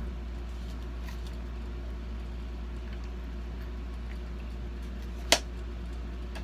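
A foam RC model warplane being handled and turned over: faint rustles and clicks over a steady low hum, with one sharp click about five seconds in.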